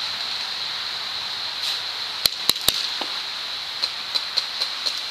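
Airsoft gunfire: three sharp shots in quick succession a little over two seconds in, then a run of about six fainter shots a second later, over a steady hiss.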